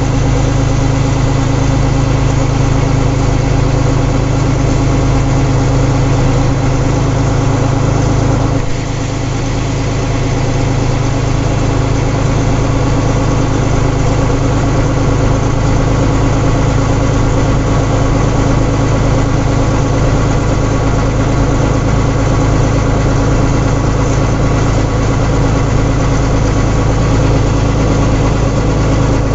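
Engine of rice-harvesting machinery running steadily and loudly; about nine seconds in, its note briefly dips and changes, then it runs on evenly.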